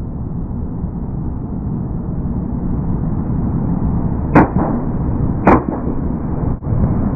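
Steady low rumble of a vehicle driving at speed, with wind on the microphone, broken by two short sharp whooshing cracks about a second apart.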